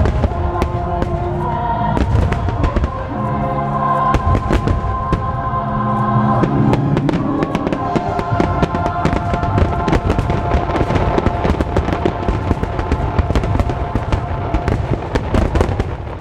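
Fireworks show: a rapid run of aerial shell bursts and crackling, growing denser in the second half, over the show's loud orchestral and choral music soundtrack.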